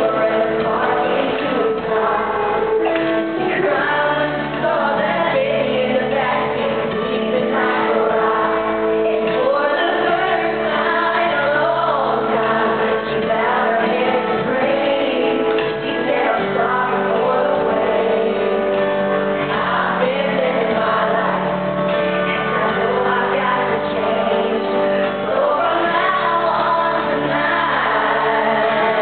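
Live arena concert music heard from far back in the audience: a woman singing a slow country ballad over a band, with backing voices. The sound is muffled and roomy, as through a camcorder's microphone.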